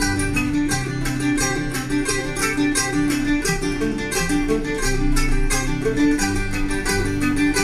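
Background music led by a plucked guitar, with quick regular picked notes over a steady bass.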